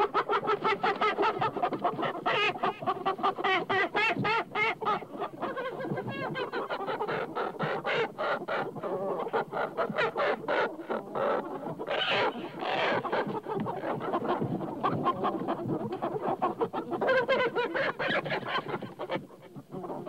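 Chicken hens clucking in a dense, continuous run of short clucks, with a couple of louder, higher calls about twelve seconds in.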